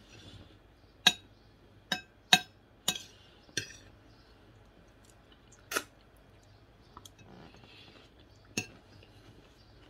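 Metal spoon clinking and scraping on a ceramic plate while eating, seven sharp ringing clinks: five close together in the first four seconds, one about halfway through and one near the end. Soft chewing can be heard between them.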